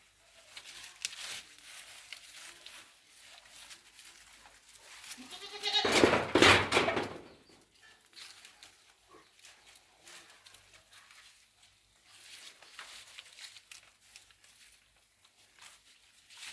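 A goat bleats once, loud and drawn out, for about two seconds starting about six seconds in. Faint scattered clicks and rustles fill the rest.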